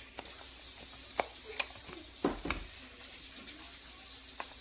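Handheld twist garlic crusher being spun to crush garlic cloves between its toothed halves: several sharp clicks and scrapes over a steady hiss.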